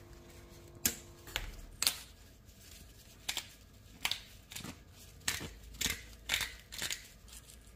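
About a dozen small, sharp clicks and taps, irregularly spaced, from kitchen utensils being handled while a pinch of ground black pepper is added to a blender jar.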